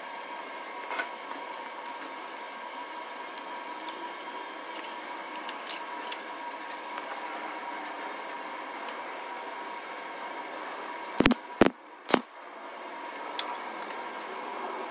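MIG welder striking three short tack welds on steel plate near the end, about half a second apart, over a steady hum with a few light clicks before.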